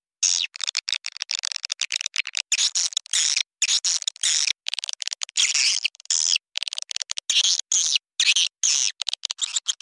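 Recorded edible-nest swiftlet calls: rapid high-pitched chattering and clicking in quick trains, with short chirps between them. This is a swiftlet lure call, the kind played to draw swiftlets into nesting houses.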